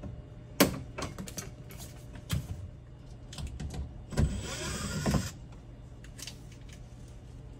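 Clicks and knocks of wiring-harness connectors and plastic clips being handled overhead under a UTV's roof. The sharpest click comes about half a second in, and a rasping scrape lasting about a second follows near the middle.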